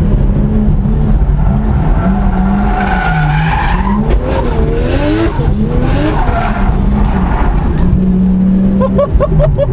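Tuned 500 bhp Nissan Skyline drift car heard from inside the cabin: the engine runs hard, its pitch rising and falling as the throttle is worked, while the tyres squeal in wavering howls, strongest through the middle of the drift.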